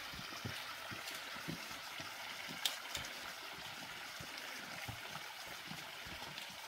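Running water of a stream, a steady rushing, with faint low knocks underneath and a brief sharp tick a little under three seconds in.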